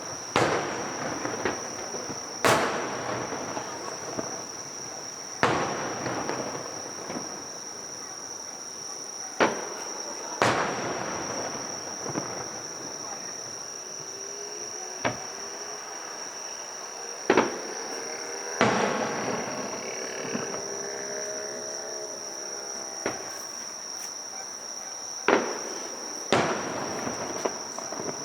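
Aerial fireworks shells bursting, about ten loud bangs at irregular intervals, each trailing off in an echoing crackle. Insects chirr steadily at a high pitch underneath.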